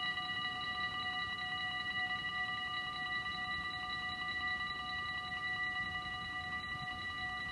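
Warning bells of a Dutch automatic half-barrier level crossing ringing steadily, signalling an approaching train as the barriers lower.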